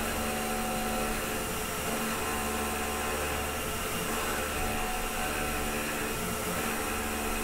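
Tormach PCNC 1100 CNC mill's spindle running at 5100 RPM while a 1/4-inch high-speed-steel end mill pockets out aluminium in a roughing pass: a steady machining hum and whine.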